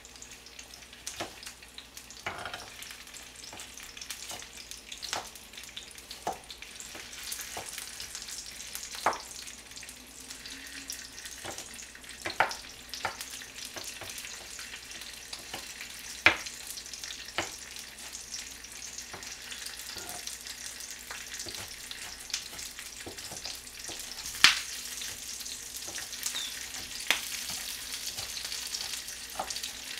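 Kitchen knife chopping onion on a plastic cutting board: irregular knife strikes about once a second, a few of them louder knocks. A steady hiss of a pot boiling on a gas burner runs underneath.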